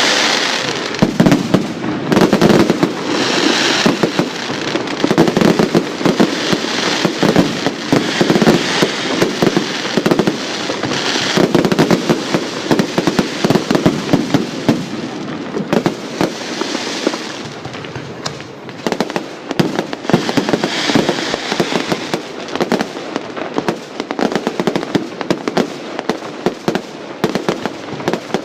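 Fireworks display: a dense, unbroken run of bangs and crackling shell bursts, loud throughout, with busier clusters several times.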